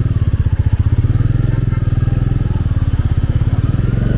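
Motorcycle engine running with an even, low pulsing beat as the bike pulls away and rides on.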